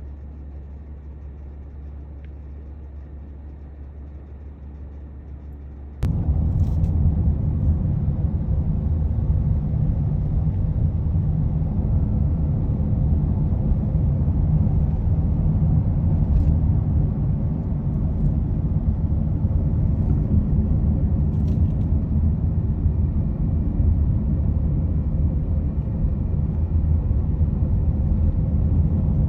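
Minivan driving along, heard from inside the cabin: a steady low hum of engine and road. About six seconds in it jumps suddenly to a much louder, steady rumble of engine and tyres.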